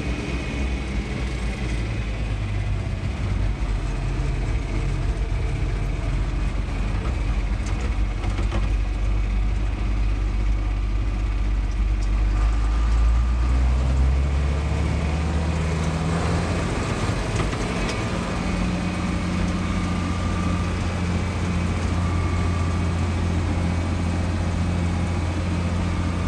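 John Deere tractor engine running under way, heard from inside the cab. About halfway through, its pitch rises as the engine speeds up, then holds steady at the higher speed.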